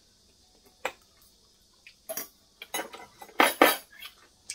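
Metal chopsticks clicking and scraping against bowls and dishes: a couple of single clinks, then a busier run of clattering about halfway through, loudest near the end.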